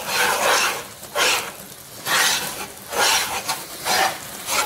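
Spoon stirring rice flour into boiling jaggery syrup and coconut in a pan, working it into a dough. The scraping and mixing come in strokes about once a second.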